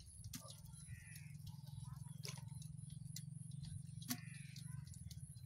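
Small fish being taken from a net and dropped into an aluminium pot: scattered light clicks and taps, with one sharper knock about four seconds in, over a low steady hum.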